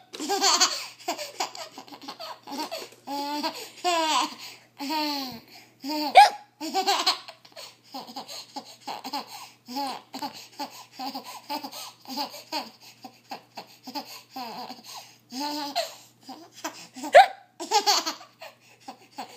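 A seven-and-a-half-month-old baby laughing in repeated short bursts, set off by a few sharp hiccups.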